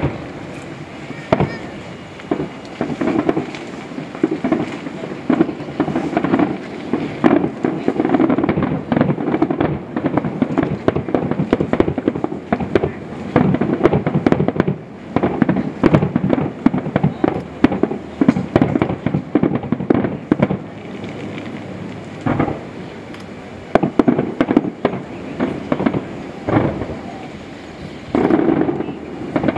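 Fireworks display: a rapid-fire barrage of aerial shells bursting, several bangs a second with crackle between them, easing briefly a few times and picking up again near the end.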